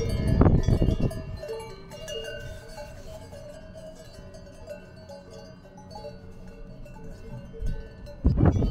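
Cowbells on grazing alpine cattle ringing irregularly at several different pitches. A low rumble of wind noise is louder in the first second and comes back near the end.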